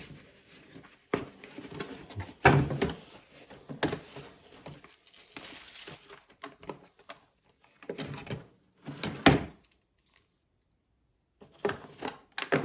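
Handling noise from a rotary tool kit's soft carrying case and accessories being unpacked: a string of irregular knocks and rustles, with a quiet spell near the end.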